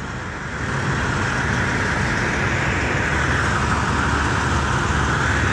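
Steady drone of parked semi trucks idling, rising a little about half a second in and then holding level.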